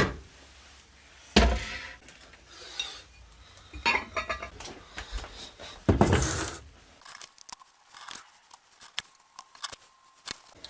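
Kitchen containers and utensils being handled while oils are set out for soap making: separate knocks and clatters a few seconds apart, the loudest about six seconds in, then a run of light clicks and taps.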